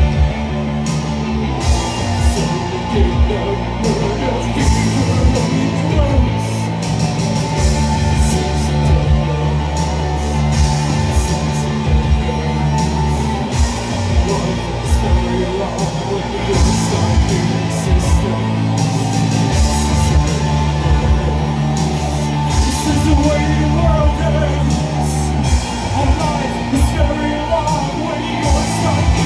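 Live post-punk band playing amplified through a club PA: electric guitar, bass and regular drum hits under a singer's voice.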